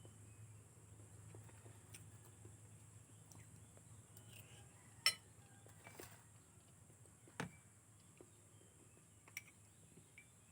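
A few sharp clinks of a spoon against a bowl or cup while eating, separate and a second or two apart, the loudest about halfway through, over a faint low hum.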